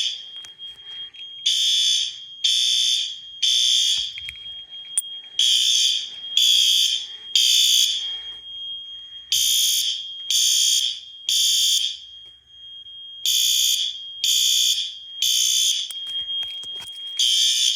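Fire alarm horns sounding the temporal-3 evacuation pattern: three half-second blasts, a pause, then three more, repeating four times, with a faint steady high tone continuing between the blasts. This is a general alarm raised by a manual pull station.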